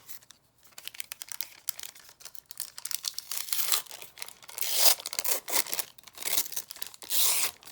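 Thin plastic packaging crinkling and rustling as it is handled and pulled open, in a run of irregular crackles with the loudest bursts about five and seven seconds in.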